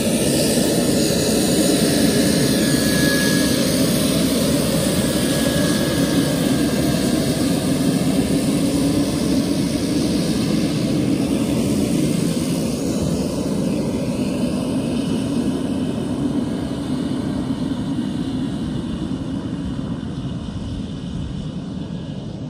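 Pilatus PC-12's single Pratt & Whitney PT6A turboprop engine and propeller running steadily as the aircraft taxis past, the sound fading gradually over the last several seconds as it moves away.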